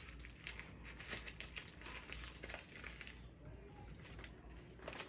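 Faint, irregular crinkling and crackling of packaging handled by hand as a return mailer is sealed.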